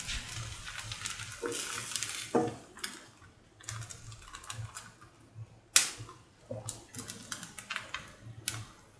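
Semolina pancake batter cooking on a hot oiled pan: a sizzle that fades after the first few seconds, then irregular crackles and pops, with one sharp pop a little past halfway.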